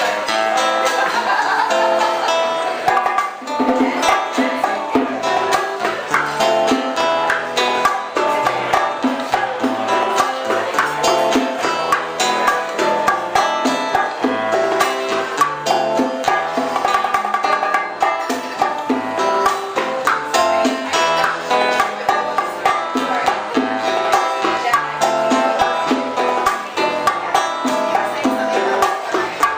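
Live band playing old-school Cuban music, with plucked strings leading over a steady percussion rhythm.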